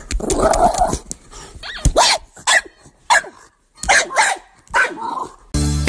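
A dog growls briefly at the start, then gives about six short, sharp barks.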